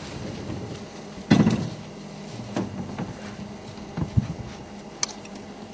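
African elephants breaking branches in the bush: a loud crack of wood with a dull thud about a second and a half in, then several smaller snaps and knocks.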